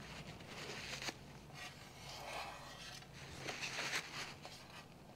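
Faint rubbing and scraping of a finger smoothing caulk along the welded seams of a steel motorcycle seat pan, in three short spells, with a light click about a second in.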